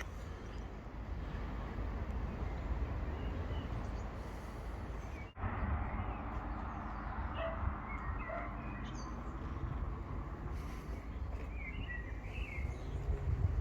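Outdoor ambience: a steady low rumble of wind and distant traffic, with a few small bird chirps in the second half.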